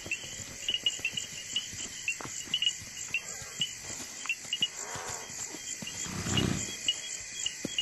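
Night insects chirping in a steady chorus of short repeated high chirps, with scattered faint thumps and a brief soft low swell about six seconds in.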